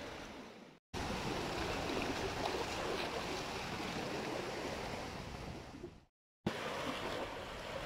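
Sea waves washing around rocks at the shore, a steady rush of surf. The sound drops out to silence twice for a moment, just under a second in and about six seconds in.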